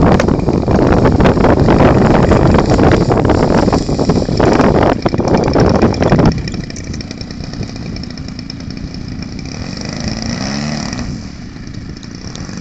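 Extra aerobatic plane's engine running during a landing in strong wind, with heavy wind buffeting on the microphone. About six seconds in the sound drops sharply to a quieter, steady engine drone, with a brief rise and fall in pitch near the end.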